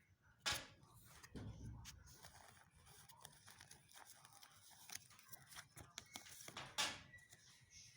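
Pokémon trading cards being handled: soft card-stock rustles and flicks, with two sharper snaps of card against card about half a second in and near the end.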